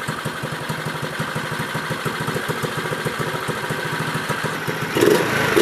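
Small Honda-clone single-cylinder four-stroke minibike engine idling steadily with an even putter just after its carburetor has been cleaned, while a carburetor adjustment screw is set with a screwdriver. About five seconds in it revs up louder.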